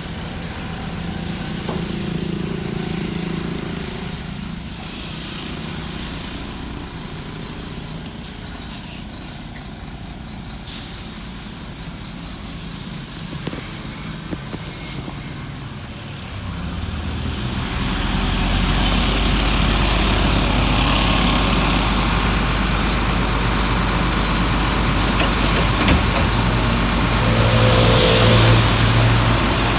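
Heavy diesel construction machinery engine running steadily, growing louder and deeper a little past halfway through as a machine works harder or comes closer.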